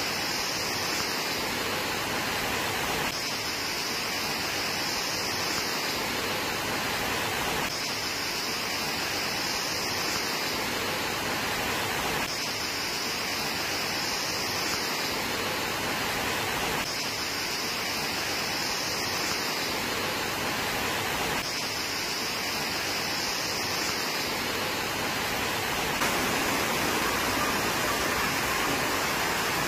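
Steady rush of rain and floodwater running along a waterlogged street. A high hiss comes and goes about every four and a half seconds, and the sound grows a little louder near the end.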